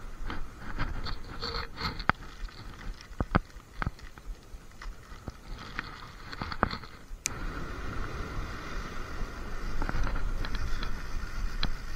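Scattered sharp clicks and knocks at an uneven pace, thickest in the first seven seconds, over a steady low rumble and hiss of wind on the microphone.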